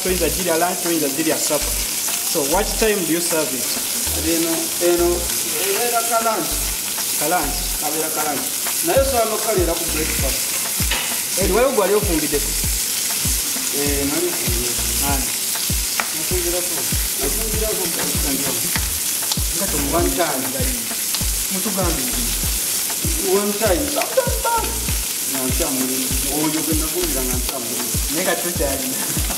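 Chicken pieces sizzling as they fry in hot oil in a pan: a steady high hiss that runs on unbroken, with wavering pitched sounds and short low knocks underneath.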